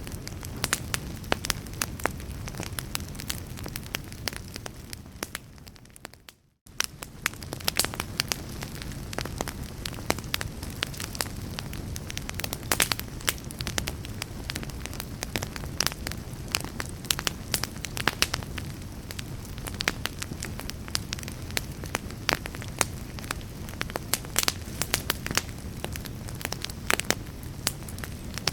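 Wood fire crackling in a fireplace: a steady low rumble of flames with frequent sharp pops and snaps. About six seconds in the sound fades out for a moment and comes straight back.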